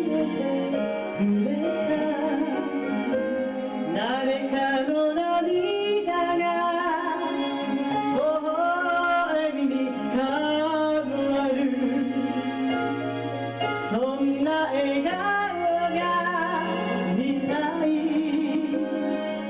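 Background music: a woman singing a gospel song over instrumental accompaniment.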